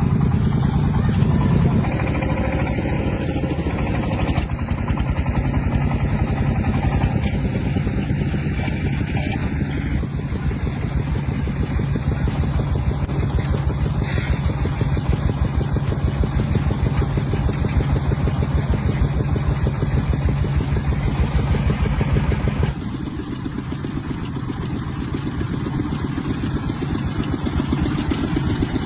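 Tractor engine running steadily with a rapid, even firing beat; it turns somewhat quieter near the end.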